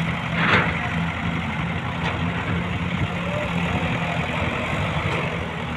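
Long-boom excavator's diesel engine running steadily, with a short louder burst of noise about half a second in.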